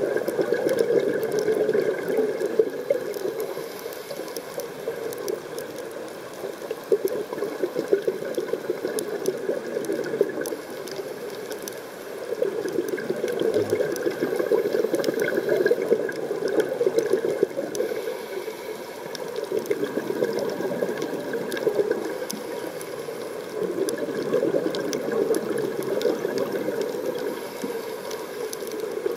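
Scuba regulator exhaust bubbles heard underwater, bubbling in bursts that swell and fade every several seconds with the diver's breaths.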